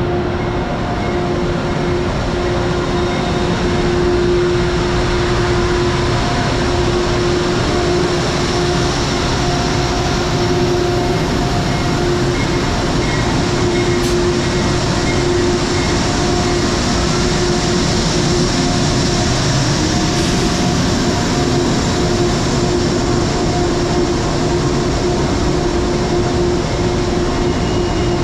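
Steady hum of a standing Amtrak train at an underground platform, led by P32AC-DM locomotive 709, with a held mid-pitched tone over an even rush of machinery noise.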